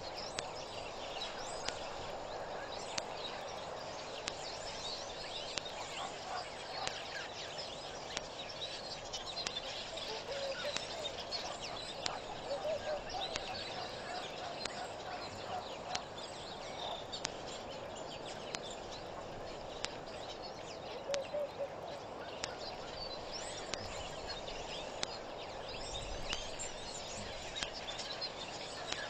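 Outdoor ambience of several birds chirping and calling over a steady hiss, with a run of lower, repeated calls through the middle and scattered sharp clicks.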